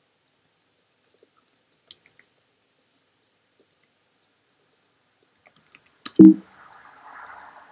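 Computer keyboard keystrokes, a few sparse clicks at a time, then a much louder single thump about six seconds in, followed by a faint steady hiss.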